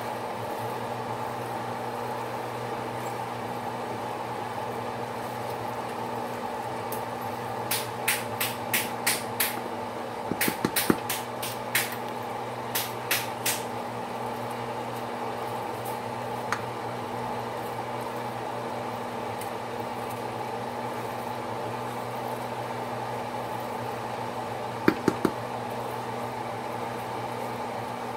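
A steady hum with a low tone underneath, broken by a run of sharp knocks about a third of the way in and three more near the end: a wooden spoon knocking against the side of a metal pot while stirring rice.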